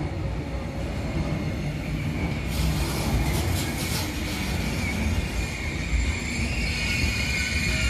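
Freight train of container wagons with curtain-sided swap bodies rolling past at close range: a steady rumble of wheels on rail, with a high wheel squeal that grows stronger in the second half.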